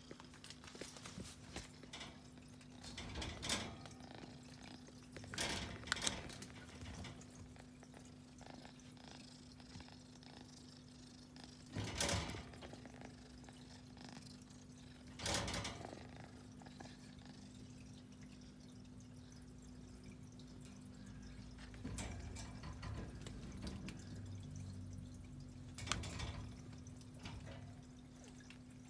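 A kitten playing: about five short, sudden sounds, perhaps mews or scuffles, spread over the stretch, over a steady low hum.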